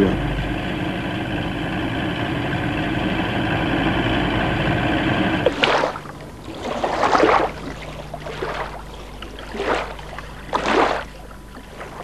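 Outboard motor of a Zodiac inflatable boat running steadily. After about five and a half seconds it drops to a quieter low hum, broken by several short rushing sounds.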